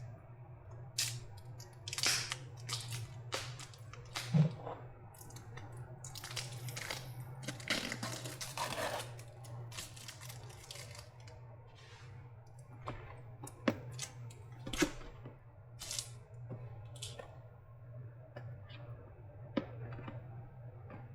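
Tape being pulled and peeled off an e-bike battery pack casing, with irregular clicks and scrapes of handling and a longer rasping tear about seven to nine seconds in. A steady low hum runs underneath.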